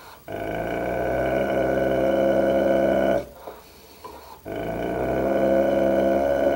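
A large mastiff growling at its own reflection in a mirror: two long, steady, deep growls of about three seconds each, with a short pause between them about three seconds in.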